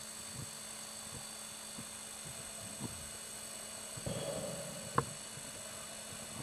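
Underwater audio from a diving camera: a steady electronic hum with faint scattered low knocks, a short rush of noise about four seconds in and one sharp click about a second later.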